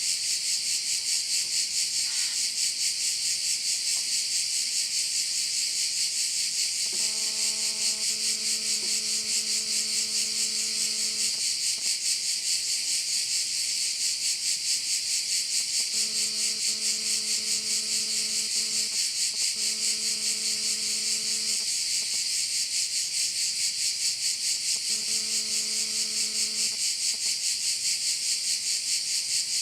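Dense, unbroken insect chorus, a fast pulsing shrill buzz. A faint steady hum with a fixed pitch comes and goes four times underneath it.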